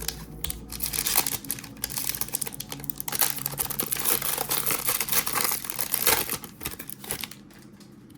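Trading-card pack wrapper being torn open and crinkled by hand, a dense crackling rustle that stops about seven seconds in.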